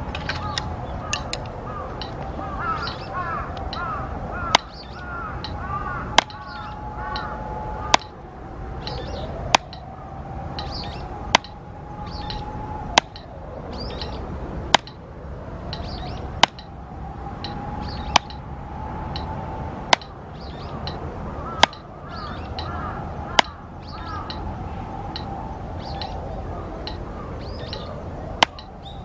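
Drumstick striking a rubber practice pad in slow, single full strokes, one sharp tap about every 1.7 seconds. Birds chirp in the background.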